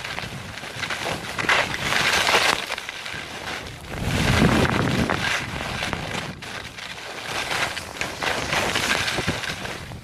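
Skis carving and scraping over packed snow, the rushing noise swelling with each turn about every two seconds, the deepest and loudest swell about four seconds in. Wind blows over the helmet-mounted microphone throughout.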